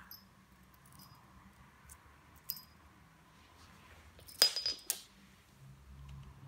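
Small bell on a feather wand cat toy jingling in a few brief shakes as a kitten bats at it, the loudest jingle about four and a half seconds in.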